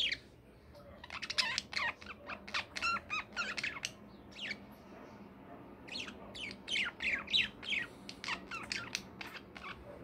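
Pet budgerigar chattering: quick strings of short chirps and squawks, about four or five a second, with a lull of a second or two about four seconds in.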